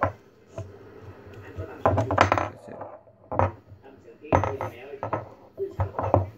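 A steel drill chuck key and its rubber key holder handled and knocked against a tabletop: irregular clicks and knocks, the loudest about two seconds in and again about four and a half seconds in.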